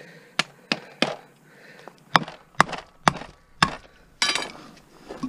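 Hammer blows on a screwdriver set against the rusty cast-iron casing of an electric water pump motor, knocking the casing loose: about seven sharp, unevenly spaced metal knocks, with a rougher rattle a little after four seconds in.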